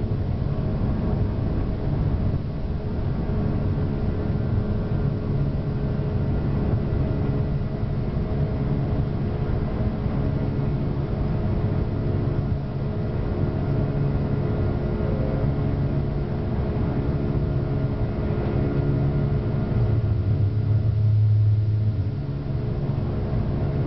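Cabin noise of an Airbus A340-300 at takeoff power, the steady rumble and hum of its four CFM56 turbofans and rushing air heard from inside the cabin, as the jet lifts off and climbs. A deeper hum swells for about two seconds near the end, then eases.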